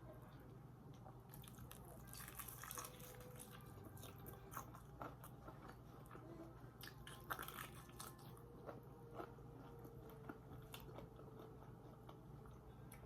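Someone biting into and chewing crunchy food: irregular clusters of crisp crunches, the loudest about seven seconds in.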